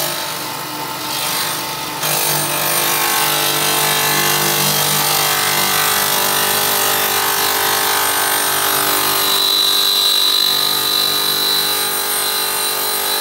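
Stone-cutting machine running steadily, a dense mechanical whir with several steady tones. It gets louder about two seconds in, and a high whine rises above it for a couple of seconds near the end.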